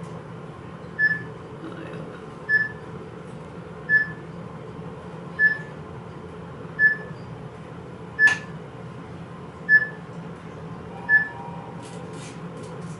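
Mitsubishi traction elevator giving a short high electronic beep about every one and a half seconds, nine times, over the steady low hum of the moving car.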